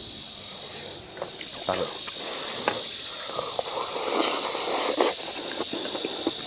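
A steady, high-pitched chorus of insects droning. Over it come scattered small clicks of chopsticks against porcelain rice bowls, and the sounds of eating.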